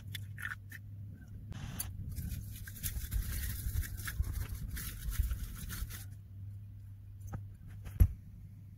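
Bamboo matcha whisk (chasen) whisking tea in a glass bowl: a fast brushing scrape lasting about four seconds, starting about two seconds in. A single sharp knock near the end, over a low steady hum.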